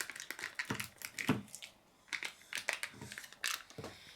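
Plastic packaging of a slime toy being handled and cut open: a quick run of small clicks and crackles, pausing briefly about halfway through.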